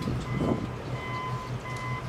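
A vehicle's reversing alarm beeping repeatedly over a low, steady engine hum, with a brief rustle about half a second in.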